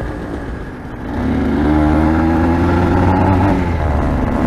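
Aprilia RS 125's two-stroke single-cylinder engine, running softly for about the first second, then opening up hard about a second in, its pitch rising under acceleration before falling back near three and a half seconds and pulling on loud.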